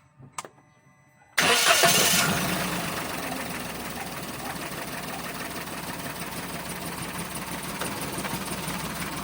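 Toyota Wigo's three-cylinder petrol engine starting: after two faint clicks it catches suddenly about a second and a half in, flares up briefly, then settles into a steady idle.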